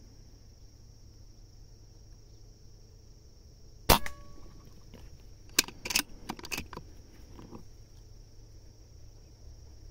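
Beeman air rifle firing a single sharp shot about four seconds in, with a short metallic ring after it, followed by a quick run of smaller clicks and knocks about a second and a half later.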